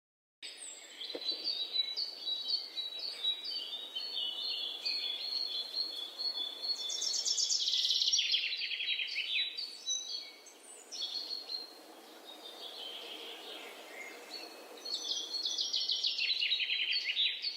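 Small songbirds singing: a string of high chirps and short trills, with two longer, denser trills falling in pitch about seven and fifteen seconds in.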